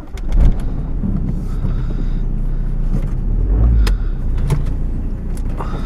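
Volkswagen Passat's engine starting and settling into a steady idle, heard from inside the cabin. The engine surges about half a second in, and a few sharp clicks sound over it later on.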